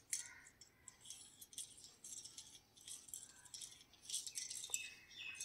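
Small plastic toy car and its metal key ring rattling and clicking as they are handled, in short faint bursts about once a second, with a sharp click near the start.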